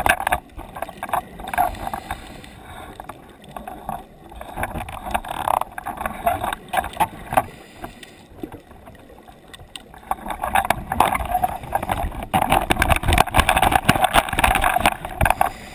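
Muffled underwater crackling and bubbling, with knocks on the camera housing as the snare is handled; it gets busier and louder over the last few seconds.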